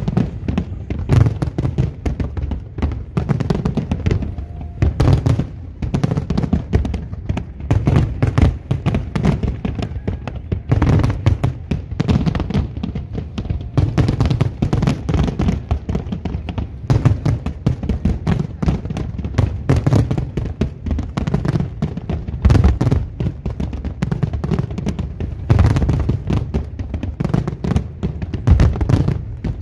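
Aerial firework shells bursting in a dense, continuous barrage, several booms a second over a deep rumble.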